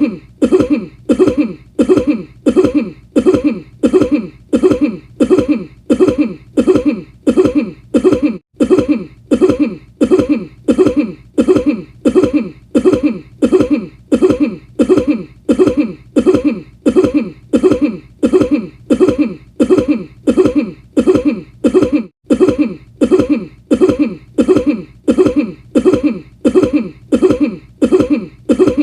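A single short cough looped over and over without a break, each repeat identical, about three coughs every two seconds.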